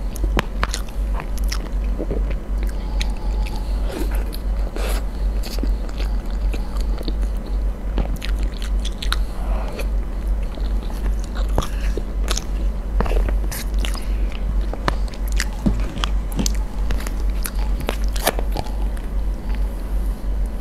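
Close-miked eating sounds: irregular wet chewing and smacking of a soft cream cake, with sharp clicks of a wooden spoon scraping and tapping a plastic tub, over a steady low hum.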